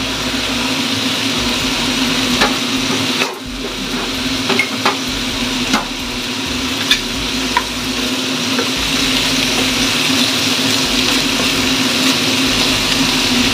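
Cabbage, carrots and meatballs sizzling in a nonstick frying pan over a gas burner as a spatula stirs them, with scattered clicks and scrapes of the spatula against the pan. A steady hum runs underneath.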